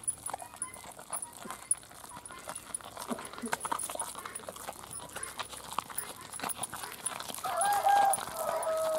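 Hand-turned stone grinder (aattukal): the cylindrical stone pestle turning in the stone mortar through thick vada batter, with irregular knocks and clicks of stone on stone. Near the end a high, held call in two parts, the second lower, is the loudest sound.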